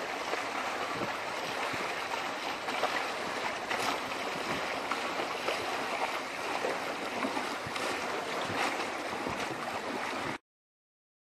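Water rushing and splashing steadily along the hull of a small sailing yacht under way; it stops abruptly near the end.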